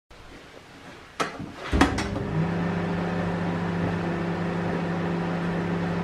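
A few sharp clicks about a second in, then a microwave oven starts and runs with a steady hum.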